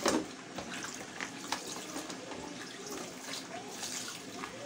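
Water splashing and trickling in a large plastic basin as washed fish are lifted out by hand and water runs off them back into the basin, with a sharp knock right at the start.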